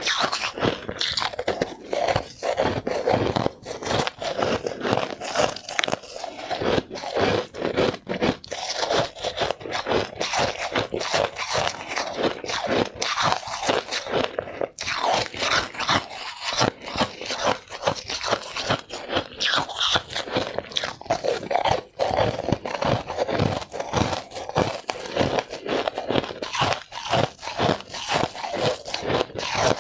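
A person biting and chewing white balls of ice, a continuous run of brittle, crackly crunches.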